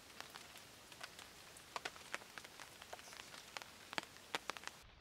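Steady rain hiss with many irregular sharp ticks of drops striking nearby surfaces.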